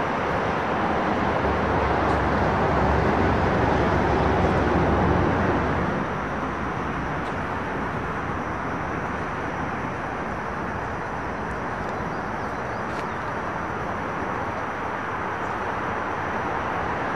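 Steady road-traffic noise, with a passing vehicle's engine rumble louder for about the first six seconds before easing off to a steady background wash.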